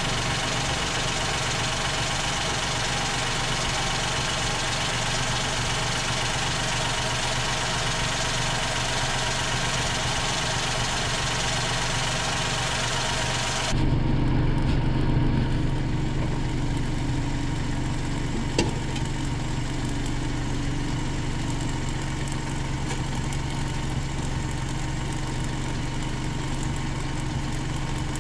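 Mitsubishi Colt 1.1i's three-cylinder engine idling steadily, heard from under the car at the exhaust pipe. The newly clamped center pipe joints are sealed, with no audible exhaust leak. The sound turns fuller and deeper about halfway through, and there is a single light click a little later.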